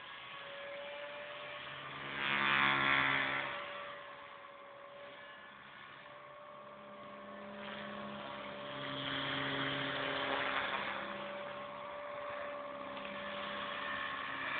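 Align T-Rex 250 electric RC helicopter flying overhead: a steady whine from its motor and rotors, with a hiss that swells loudest about two seconds in and again around nine to eleven seconds.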